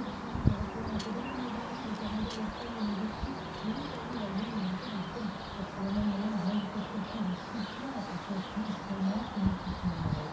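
Pigeons cooing in a low, warbling run, with small birds chirping steadily higher up; a single knock about half a second in.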